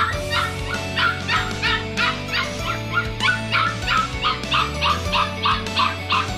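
Poodle puppy yipping rapidly and steadily, about three to four short, high yips a second, over background music.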